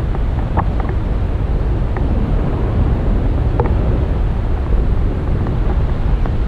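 Wind buffeting the camera's microphone in a tandem paraglider's forward flight: a loud, steady low rumble, with a few faint ticks.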